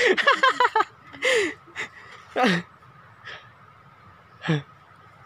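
A person's voice: a quick burst of talk, then a few short, separate calls, each falling in pitch.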